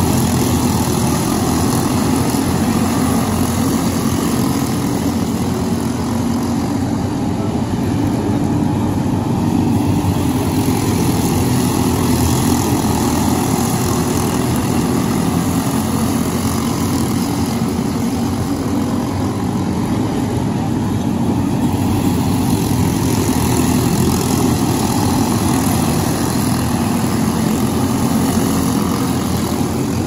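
A field of racing go-kart engines running together on the track, a continuous buzz that swells and eases a little as the karts circulate.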